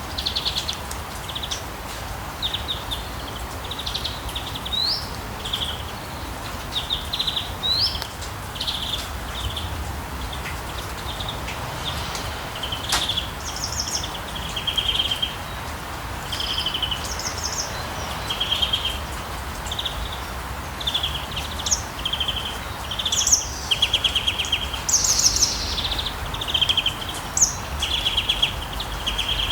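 Several birds singing, short chirping phrases and trills repeating over and over, over a steady hiss of rain and a low background rumble of town.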